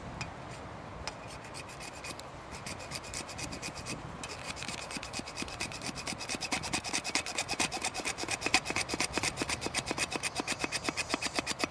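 Hacksaw cutting through PVC pipe in rapid back-and-forth strokes, starting light and growing quicker and louder from about halfway through.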